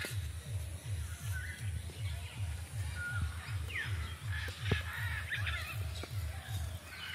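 Birds chirping and whistling in short calls over a low, even throb of about three pulses a second from an unseen source.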